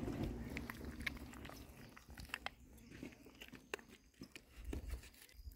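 Faint, irregular clicks and crunches of a knife cutting into the head of a slaughtered pig.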